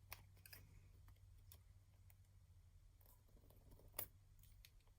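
Near silence: faint scattered clicks, with one sharper click about four seconds in, over a low steady hum.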